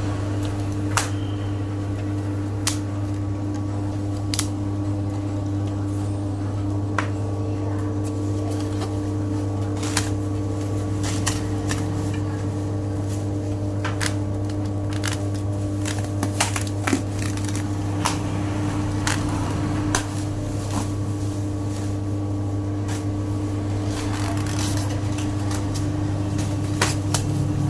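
A steady electric motor hum with scattered light clicks and knocks.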